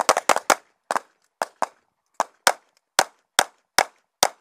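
Pistol shots: a quick string of about five in the first half second, then single shots spaced roughly half a second apart, about nine more, the last near the end.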